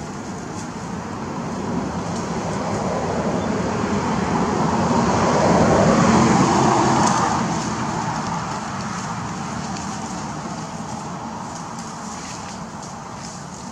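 A vehicle passing by: a steady rush of engine and road noise that swells to its loudest about six seconds in, then slowly fades away.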